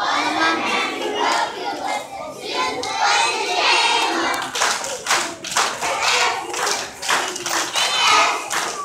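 A group of young children singing and shouting together, with hand claps from about halfway through.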